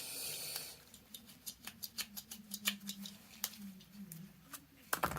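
Small metal lamp parts and hand tools being handled on a workbench: light, irregular clicks and taps, a few to several a second, after a brief soft rustle in the first second.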